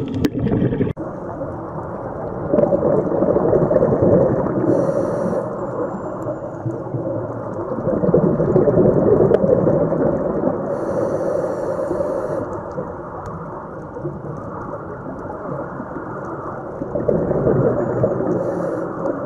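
Muffled underwater rushing and rumbling that swells and eases every few seconds, with three short hissing bursts.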